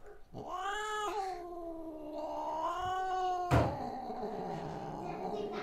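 Domestic cat giving one long, drawn-out meow that lasts about three seconds and bends up and down in pitch. About three and a half seconds in comes a sudden sharp thump, followed by a low, rough, noisy sound.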